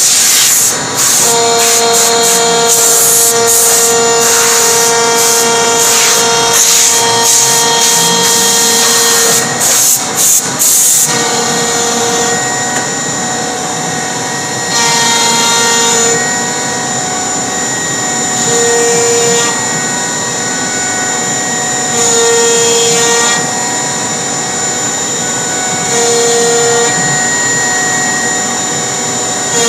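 CNC router spindle milling a profile groove into an MDF panel: a steady high whine with harsh cutting noise. The cutting is loudest and choppiest for the first ten seconds or so. After that it settles lower, swelling louder for about a second every three to four seconds as the cutter follows the curves of the pattern.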